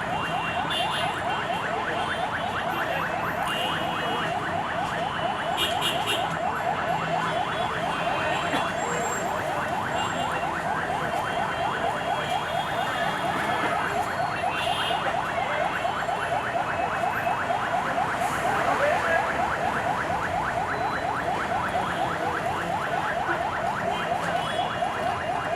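A continuous, rapidly pulsing electronic alarm tone, several short falling chirps a second without a break, over traffic noise.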